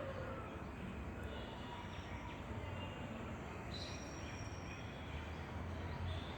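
Outdoor ambience: a steady low rumble with a few short, faint bird chirps scattered over it.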